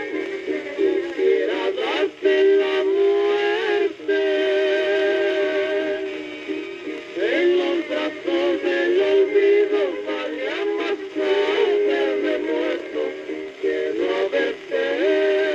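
A mariachi ranchera song by a male vocal duet with mariachi accompaniment, played from an old record on a portable suitcase record player. The sound is thin, with almost no bass.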